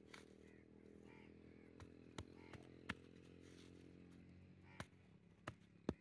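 A handful of sharp clicks and knocks from a small metal shovel working in soil, the loudest near the end, over a faint steady motor hum that fades out about three quarters of the way in.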